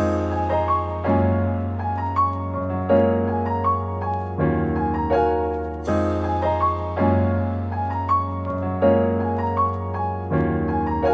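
Instrumental background music: a repeating pattern of chords over a steady bass, changing about every one and a half seconds.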